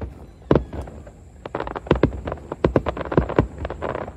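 Fireworks bursting: an irregular, rapid series of sharp bangs from aerial shells and ground-level starmines, with crackling between them that thickens in the second half.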